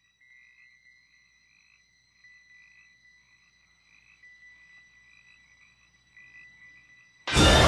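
Faint night ambience of frogs chirping over and over, a few times a second. Near the end a sudden loud burst of horror-film music cuts in.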